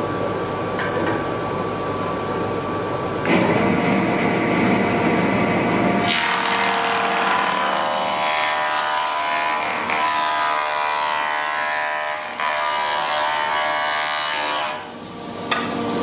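Hisimen H0452 6-inch benchtop jointer-planer running with a steady cutterhead whine, then planing a board fed across the cutterhead, which adds a loud cutting noise from a few seconds in until shortly before the end.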